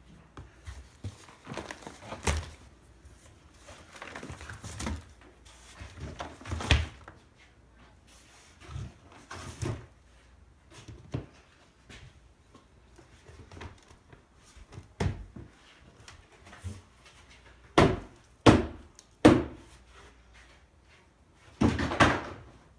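Black plastic tubs being handled and set down upside down on compost bedding: irregular knocks, bumps and scrapes of hollow plastic, with three sharp knocks in quick succession about three-quarters of the way through and a longer rustling clatter near the end.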